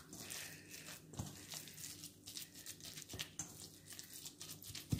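Faint, irregular squishing of hands kneading raw beef mince mixed with egg and chopped onion in a stainless steel bowl.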